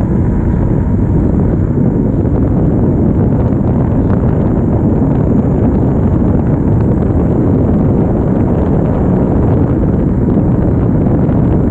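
Steady wind rush and low rumble on an action camera's microphone while riding a RadRover fat-tire e-bike along a paved trail, with the tires rolling on the asphalt.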